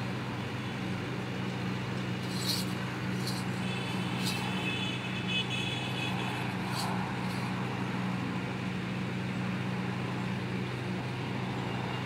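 Steady low mechanical hum like a running engine, under a background haze, with a few faint clicks about two to four seconds in.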